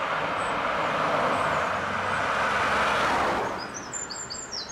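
A car driving past on the road, its tyre and engine noise swelling as it approaches, passing close about three seconds in, then dropping away quickly. Small birds chirp near the end.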